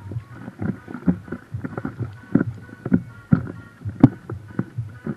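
Small choppy river waves slapping against a floating boat's hull in irregular splashes, a few a second, with the sharpest slap about four seconds in.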